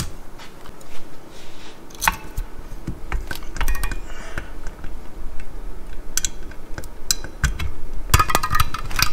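Scattered metallic clicks and clinks of a hand tool working on drum brake shoes, springs and retainer clips on a backing plate.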